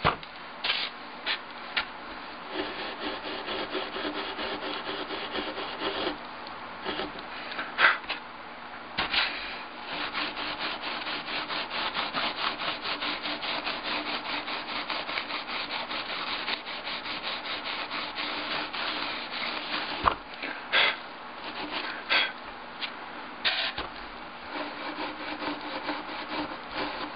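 Steel wool scrubbing rapidly back and forth along the freshly soldered lead seams of a glass display box, polishing the solder bright. A few sharp knocks come in between as the glass box is handled.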